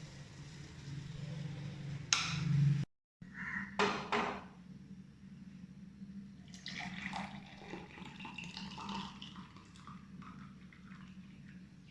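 Cooking sounds: a metal pot and utensils clinking and scraping, with liquid sounds, over a steady low hum. The sound breaks off sharply once, just before 3 s in, where two clips are joined.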